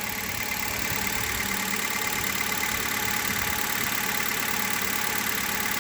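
Hyundai Solaris petrol engine idling steadily as it warms up after a cold start, running smoothly with no knock audible, which the owner puts down to the 5W-30 oil now in it.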